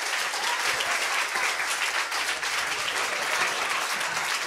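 Audience applauding steadily, a dense patter of many hands clapping at the end of a live song.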